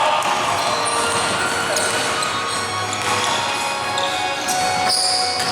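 Basketball being bounced on an indoor court during a game, with music playing.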